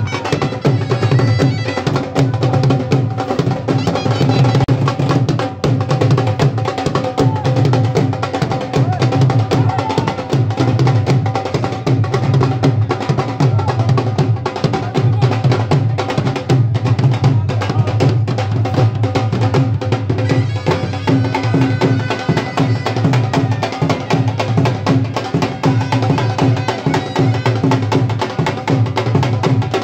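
Dhol drums played live in a dense, driving rhythm, with a steady held melody tone sounding over the drumming.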